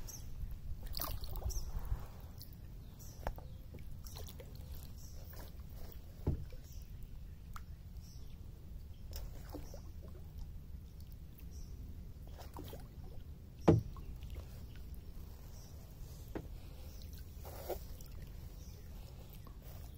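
Kayak drifting, with small water slaps and knocks against its hull over a low steady rumble; the loudest is one sharp knock a little past halfway.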